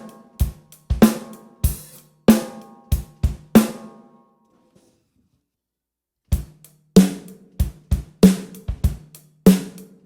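Drum kit groove of kick, hi-hat and snare, the snare muffled by a loose drum head laid on top of it to make it deeper and fatter. The playing stops about four seconds in and starts again about two seconds later.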